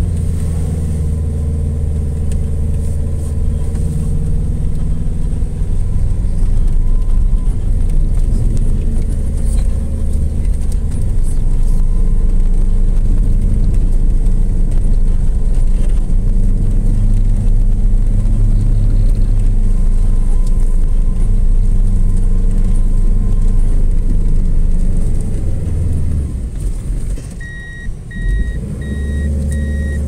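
Vehicle engine and tyre noise heard from inside the cab while driving through deep drifted snow: a steady low drone that shifts a little in pitch, then eases off near the end. As it eases, a run of short electronic beeps starts.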